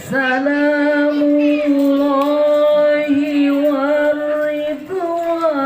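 A solo voice singing sholawat, holding one long note with a slight waver for about five seconds, then stepping up to a higher note near the end.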